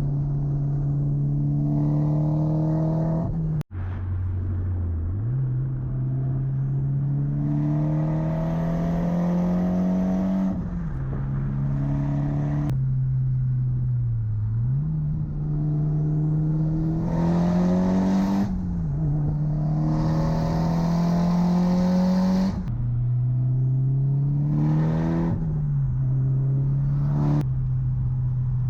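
Modified Mitsubishi Lancer Evolution X GSR's turbocharged 2.0-litre 4B11T inline-four under hard acceleration, rising in pitch through about five pulls, each ending in a sudden drop at a gear change or lift-off. The sound cuts out sharply for an instant about four seconds in.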